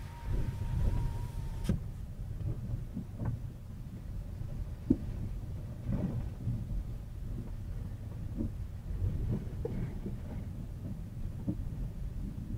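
Low rumble inside a car rolling slowly on Continental TS860 winter tyres over rutted snow and slush, with scattered knocks and thumps as the tyres and suspension hit the ruts; a sharp knock about five seconds in is the loudest. A faint high tone in the first couple of seconds stops with a click.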